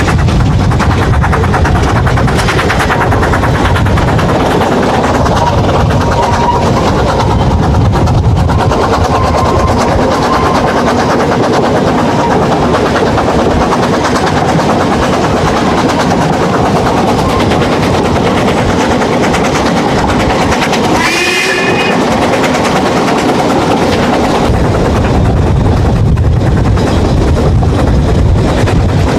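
Narrow-gauge steam train heard from an open carriage window while running: a loud, continuous, rapid clatter of the locomotive and carriages on the track. A short high tone sounds about twenty seconds in.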